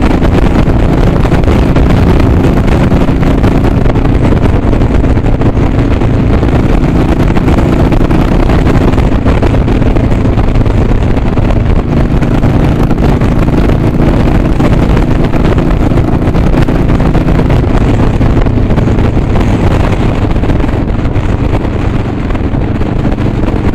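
Harley-Davidson Iron 883's V-twin engine running steadily at cruising speed, heard from the rider's seat, with wind rushing over the microphone.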